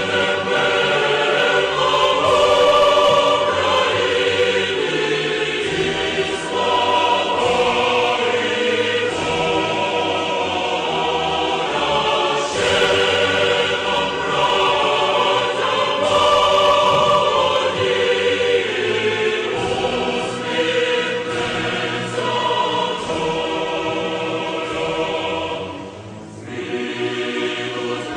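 Choral music: a choir singing sustained chords, with a brief drop in loudness near the end.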